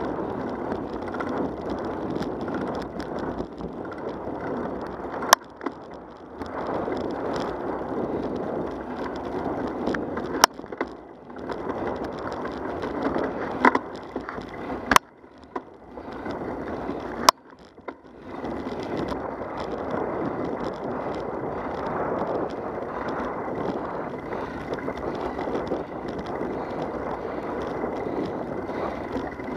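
Wheels rolling steadily on a cracked asphalt path, with road and wind noise and a few sharp clicks. The noise drops away briefly several times.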